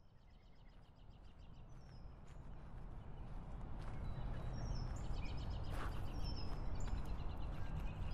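Outdoor ambience fading in from near silence: a low rumble of background noise growing louder, with birds chirping in short quick series throughout.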